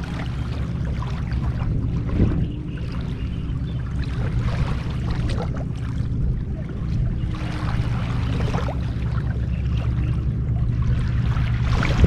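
Water splashing and sloshing around a person floating in a buoyancy vest, over a steady low hum. The splashing comes in irregular surges, strongest about four seconds in, around eight seconds, and near the end.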